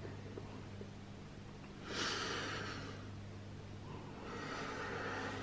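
A person breathing out hard through the nose: a sudden exhale about two seconds in, then a longer, softer one near the end.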